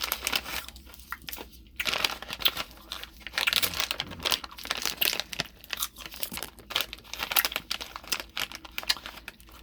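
Luden's cough-drop packaging crinkling and rustling as it is handled: dense irregular crackles with a few short pauses.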